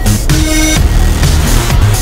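Loud electronic music with a steady beat.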